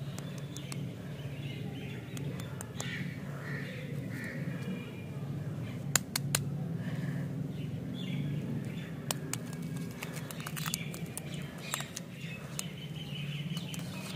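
Birds chirping over a steady low hum, with scattered sharp clicks and crinkles from plastic-wrapped lollipops being handled; the loudest click comes about six seconds in.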